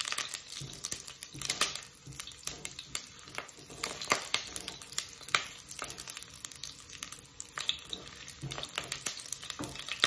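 Garlic cloves sizzling in hot vegetable oil in a pot, with many irregular small pops, while a silicone spatula stirs them.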